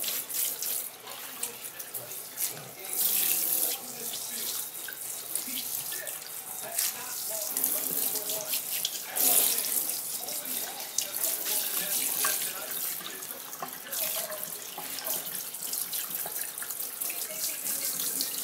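Water from a pull-out kitchen sink sprayer hissing and splashing into a stainless steel sink while rinsing a puppy, louder for a moment about 3 seconds in and again about 9 seconds in.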